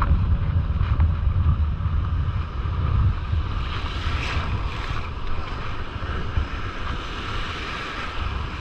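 Wind buffeting the microphone over surf washing and breaking around the legs; the wind rumble is heaviest in the first few seconds, and the hiss of the breaking waves grows from about halfway.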